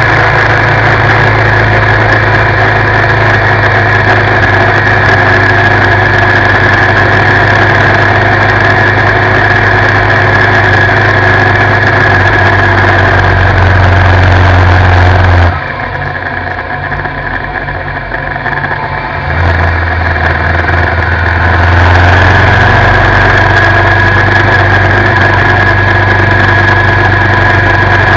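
Suzuki V-Strom 650's V-twin engine running at a steady cruise, heard close from the crash bars along with wind and road noise. About halfway through the sound drops away sharply for a few seconds, then builds back up to full level.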